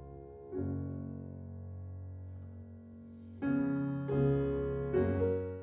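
Background piano music: slow, soft sustained chords, a new one about half a second in and three more in quick turns in the second half, fading out near the end.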